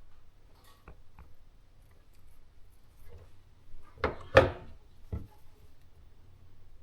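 Knocks and clatter of hard objects being handled: two small clicks about a second in, then a quick cluster of sharp knocks about four seconds in and one more a second later, over a faint low hum.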